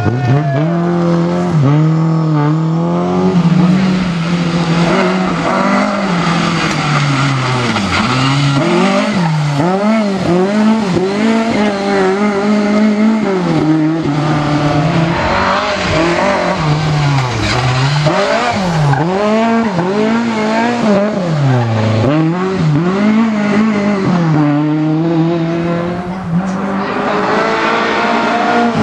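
Rally car engine revving hard, its pitch climbing through each gear and dropping again many times as it accelerates and brakes through a stage, with tyres squealing.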